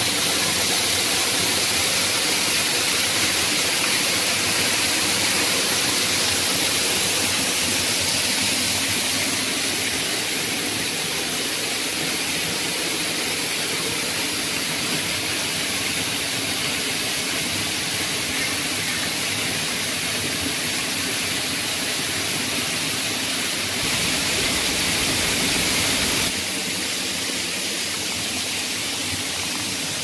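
A waterfall's water cascading over rock into a pool, a steady rushing hiss. The level steps down slightly about ten seconds in and again near the end.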